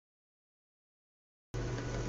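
Dead silence for about a second and a half, then a steady low hum with faint room hiss starts abruptly.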